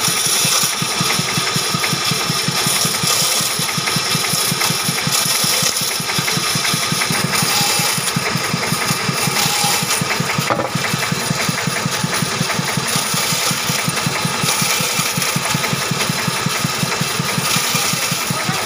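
Band saw running with a fast, steady throb from its drive, cutting timber; the high hissing cutting noise swells each time a piece is pushed through the blade to cut a drip groove in a chair part.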